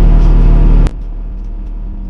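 Bobcat T650 compact track loader's diesel engine running loud and steady, then dropping abruptly to a much quieter steady hum a little under a second in, with a few faint ticks after.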